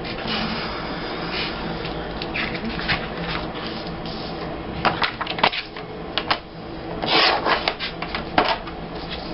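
Photo prints and paper being handled and shuffled on a work table: light taps and clicks, with a cluster of clicks about five seconds in and a short scraping rustle with more clicks about seven seconds in, over a steady background hum.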